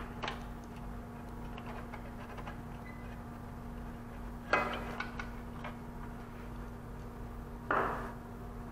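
Short clicks and knocks of server parts being handled as the power supply backplane is unclipped and lifted out of an HP ProLiant DL380p Gen8 chassis, with the loudest clatter about halfway through, a few light ticks after it and another knock near the end. A faint steady hum runs underneath.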